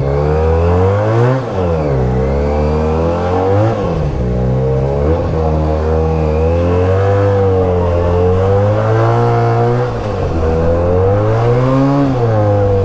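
Benelli 302S motorcycle's 300 cc parallel-twin engine under way, its pitch rising and falling over and over as the rider accelerates, changes gear and eases off the throttle.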